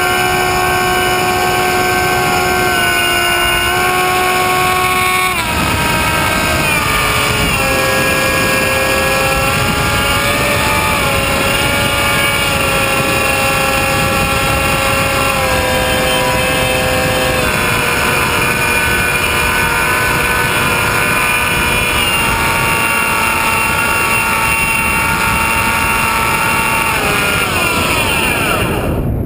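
RC airplane's motor and propeller heard from the onboard camera: a steady whine over wind rush. The pitch steps up and down as the throttle changes, drops sharply about five seconds in, and glides down near the end.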